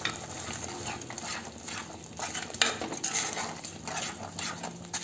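A long steel spoon stirring thick gravy paste in a clay pot, scraping against the pot in irregular strokes with a few sharper knocks.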